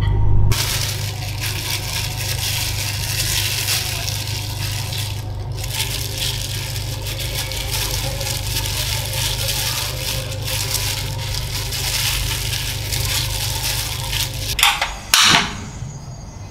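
Dry breadcrumbs crunching and rustling as a bread slice is pressed and rolled in them by a hand in a plastic glove. A few sharp clicks near the end come from the portable gas stove's igniter being lit.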